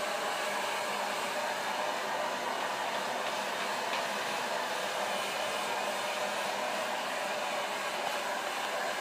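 Handheld hair dryer running steadily, blowing a bathed baby goat's wet coat dry.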